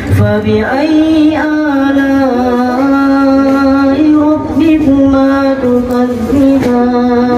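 A young man's voice chanting Quranic recitation (tilawah) into a microphone, in long held melodic notes with small ornamental turns.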